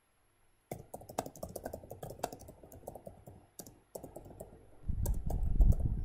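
Computer keyboard typing: quick, irregular keystroke clicks starting about a second in, with a brief pause partway, then a louder low rumble near the end.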